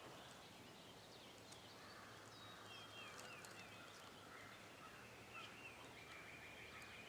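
Near silence with faint birds calling: a quick run of short falling chirps about three seconds in, scattered high ticks, and a thin held whistle near the end.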